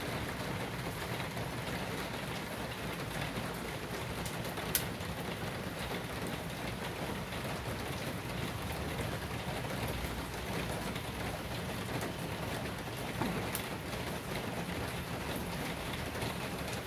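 Steady, even rushing noise with one sharp click about five seconds in.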